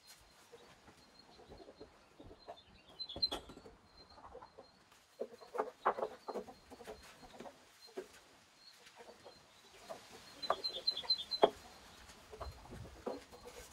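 Birds calling: clusters of short, low clucking calls, with a couple of brief runs of quick, high chirps.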